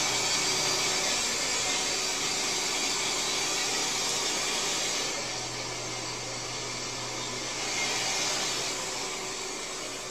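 Steady whirring noise of a small electric motor with a low hum underneath; it drops a little in level and loses some of its hiss about five seconds in.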